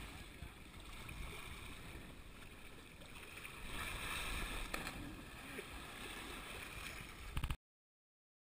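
Sea water sloshing and lapping around a GoPro camera in its waterproof housing at the water's surface, with a sharp knock right at the start and a few quick clicks near the end before the sound cuts off suddenly.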